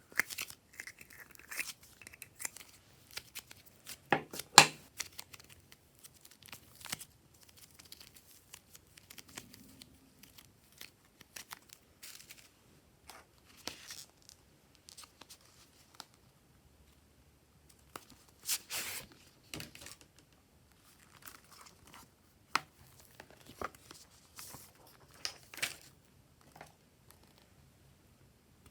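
Hands stretching, folding and pressing slime, making irregular sticky crackles and pops. The loudest pops come about four seconds in and around eighteen and twenty-five seconds in.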